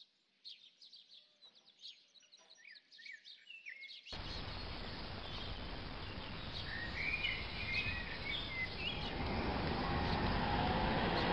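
Birds singing with short chirps and trills. About four seconds in it cuts suddenly to a steady rushing wind and road noise from riding a bicycle, with birdsong still faint over it, growing louder toward the end.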